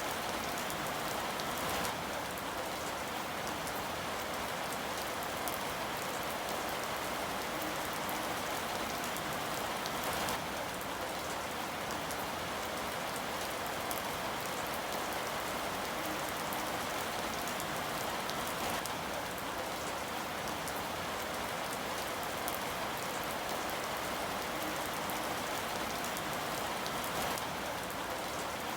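Steady rain falling and pattering on a surface, an even hiss with scattered drop ticks.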